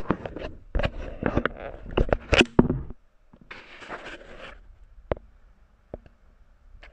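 Close-up handling noise: for about three seconds a quick run of clicks, knocks and rustles of plastic boxes and the camera being moved, then a short rustle, then a few single clicks.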